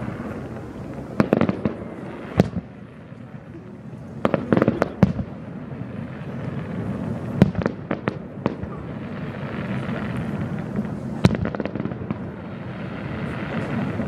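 Fireworks shells bursting: sharp bangs at irregular intervals, some alone and some in quick clusters of several.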